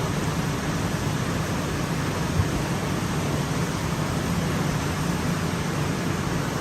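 Steady rushing noise with a low hum from a flow-calibration rig, its pump running and water moving through the test pipeline. One short soft knock about two and a half seconds in.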